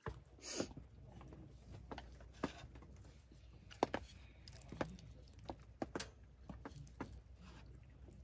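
Quiet eating: faint, scattered light clicks and crunches of chopsticks and chewing, about one or two a second, over a low steady hum.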